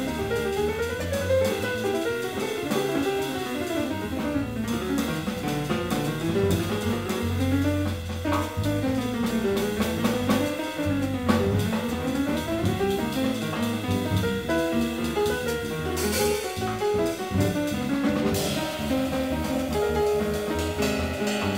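Jazz piano trio playing: acoustic piano with double bass and drum kit, the piano running in lines that rise and fall. The cymbals grow brighter in the last few seconds.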